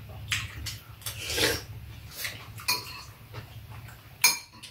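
Metal spoons and chopsticks clinking and scraping against bowls during eating, a scattering of short clicks with one loud ringing clink near the end, over a steady low hum.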